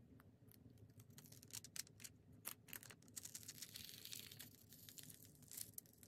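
Faint crinkling and light clicking of a thin clear plastic film being peeled slowly off a plastic sheet, with a denser stretch of soft crackle about halfway through.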